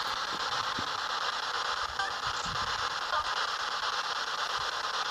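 Steady hiss of radio static, with a few faint ticks.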